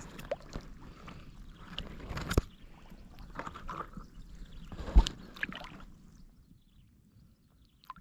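Water sloshing and splashing in shallow water as it is stirred, with two sharp knocks about two and a half and five seconds in. It dies down after about six seconds.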